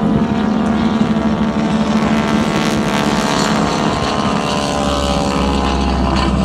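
North American T-6 Texan's nine-cylinder Pratt & Whitney R-1340 radial engine and propeller droning as the plane flies past overhead, the pitch falling midway as it goes by.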